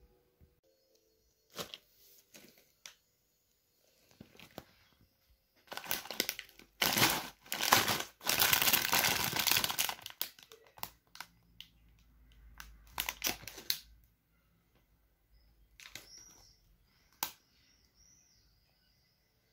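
Plastic snack bag of tortilla chips crinkling as it is handled, with a long loud stretch of rustling about halfway through and scattered smaller crackles and clicks around it.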